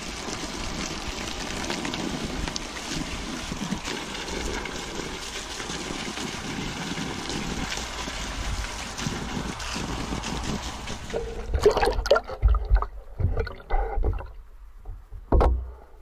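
Garden hose spraying water onto plastic mesh filter baskets, rinsing pond sludge out of them, a steady hiss of water for about eleven seconds. Then the spray stops and a run of irregular knocks and thumps follows.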